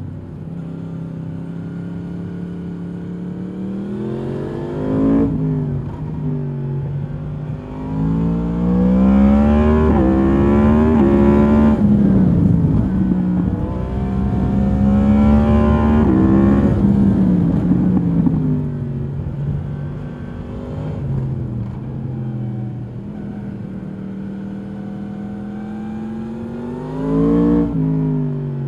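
2022 Yamaha MT-10's crossplane inline-four on its stock exhaust, heard from the rider's seat. It pulls hard twice, its pitch climbing and dropping back at each upshift, then eases off and runs steadily at lower revs. Near the end there is a quick rise and fall in revs.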